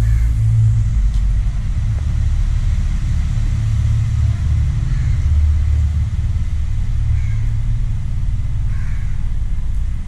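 A steady low rumble with an uneven, flickering texture.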